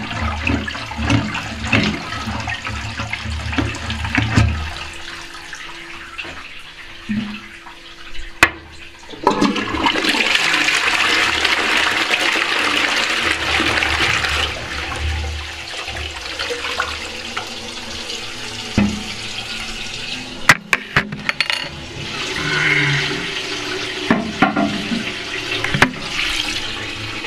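Armitage Shanks Sandringham toilet with water running and gurgling through the bowl and cistern. About nine seconds in, a sudden louder rush of water starts, lasts around five seconds, then eases to a steadier running of water, with a few sharp clicks later on.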